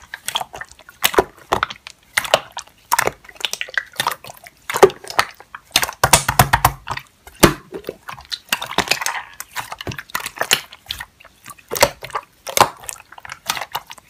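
Slime being squeezed and pressed by hand, giving irregular wet clicks and pops. A short airy squish comes a little past halfway.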